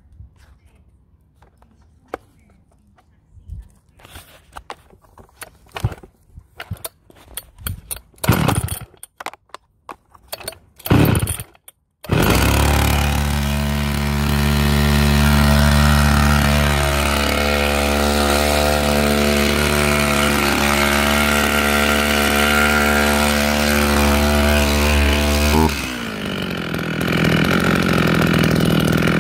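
Makita DCS520 two-stroke chainsaw being pull-started: a run of irregular pulls and short loud bursts, then the engine catches about 12 seconds in and runs at a steady fast speed. Near the end the engine speed drops and falls to a slower idle.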